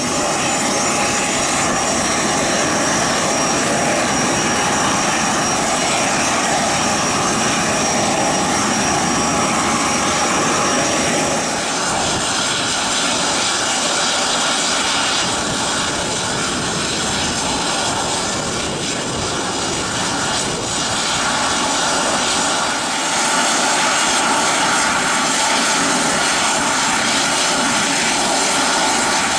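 Steady jet turbine whine with thin high tones, changing abruptly about 12 and 23 seconds in. It comes first from Embraer ERJ145 regional jets at the gate, then from an Embraer E175 taxiing on idle power.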